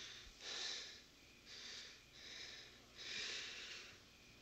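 A man breathing hard through clenched teeth: about five faint, hissing breaths in quick succession.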